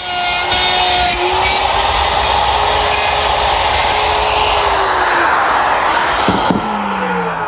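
Electric router with a guide collar and dovetail bit running up to speed and cutting the pins of a dovetail joint in half-inch stock on a dovetail jig. Its pitch rises as it starts, holds steady through the cut, and falls as it winds down near the end.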